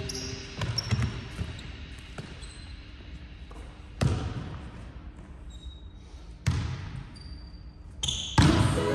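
Volleyball hits echoing around a large sports hall: two sharp smacks about two and a half seconds apart, with a few fainter knocks before them.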